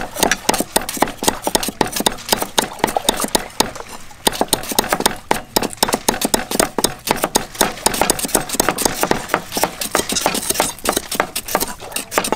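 Cleavers chopping herbs on round wooden chopping blocks, more than one knife going at once: a fast, uneven run of sharp knocks, several a second.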